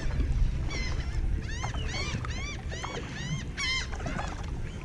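A bird calling a rapid series of about eight short, arched chirps, two to three a second, which stop near the end. A steady low rumble runs underneath.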